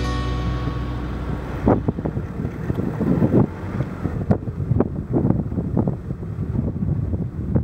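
Wind buffeting the microphone in irregular low gusts and thumps from a vehicle moving over rough ground. Music fades out in the first second or so.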